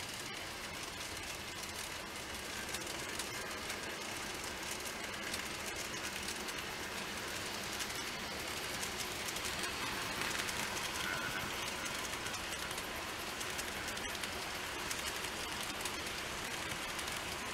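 N-gauge model train, a TOMIX C55 steam locomotive model hauling passenger coaches, running on the track with a steady fine rattle of small wheels on the rails. It grows a little louder about ten seconds in as the train comes close.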